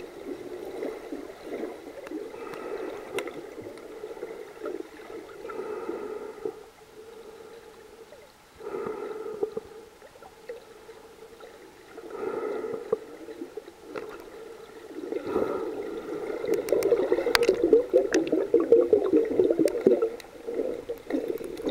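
Muffled water gurgling and swishing picked up by a camera held underwater as a snorkeler swims, coming in surges of a few seconds each, the loudest near the end.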